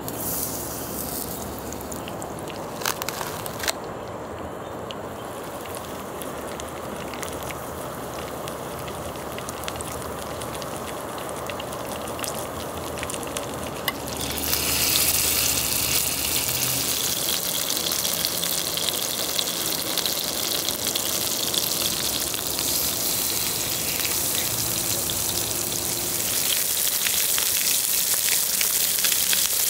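Food sizzling on the griddle plate of a 2-in-1 electric hotpot and grill cooker, with broth boiling hard beside it. A couple of sharp clicks a few seconds in, and about halfway through the sizzle turns suddenly louder as more food is laid on the hot plate.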